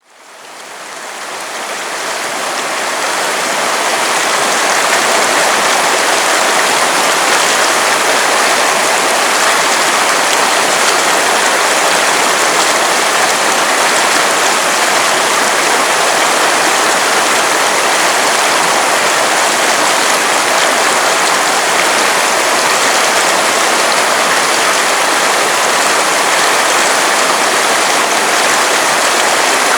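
River water running, a steady rushing hiss that fades in over the first few seconds.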